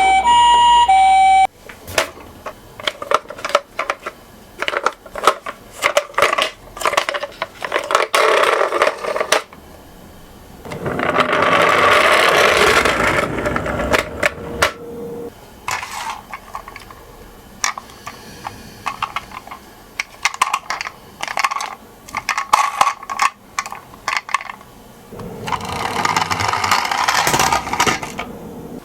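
A toy ambulance minicar's electronic siren cuts off about a second and a half in. Then come many sharp clicks and clacks of small toy cars being handled and set down, with two longer stretches of rattling as the minicars roll along the track.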